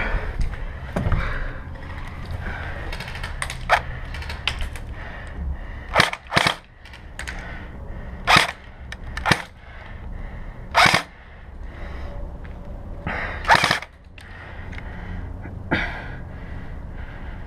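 Airsoft guns firing: a scattered series of single sharp shots at irregular intervals, a second or more apart, some close and some fainter.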